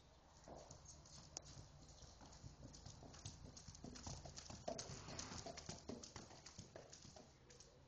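Hoofbeats of a ridden palomino horse on a barn aisle's dirt floor, a quick run of sharp clip-clops. They grow louder as the horse passes close, then fade near the end.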